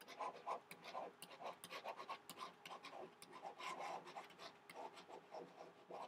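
Faint scratching of a stylus tip on a tablet surface, many quick short strokes as two words are handwritten.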